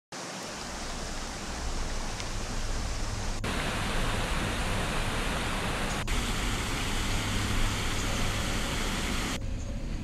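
Rushing river water, including water spilling over a concrete weir, heard as a dense steady rushing noise. It changes abruptly at hard cuts about three and a half, six and nine and a half seconds in, turning duller after the last.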